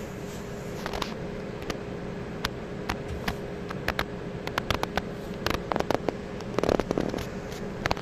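A steady low hum with a constant tone, overlaid by irregular sharp clicks and crackles that come more often and louder in the second half.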